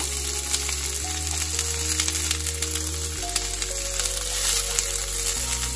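Diced onion sizzling and crackling in hot oil in a cast-iron pan, under background music of slow, sustained low chords.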